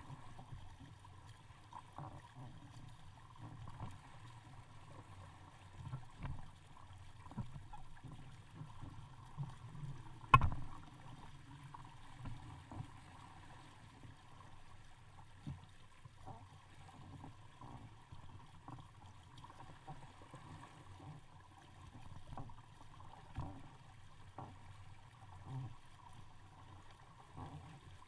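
Water lapping and gurgling against the hull of a small sailboat under way, with scattered light knocks and one louder knock about ten seconds in.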